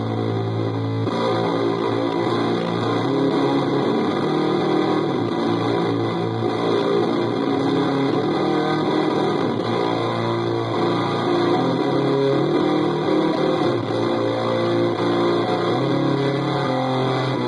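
Electric guitar played through a high-gain amp, heavily distorted: a held chord for about the first second, then continuous riffing with changing notes.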